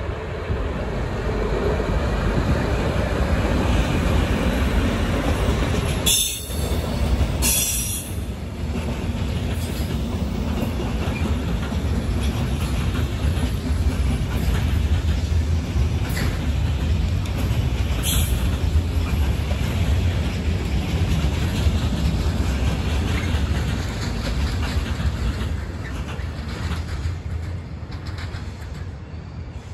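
A class 232 diesel locomotive passes, hauling a long freight train of loaded timber wagons. The steady rumble and clatter of the wagon wheels on the rails carries through, with a few sharp clicks. It fades over the last few seconds as the end of the train goes by.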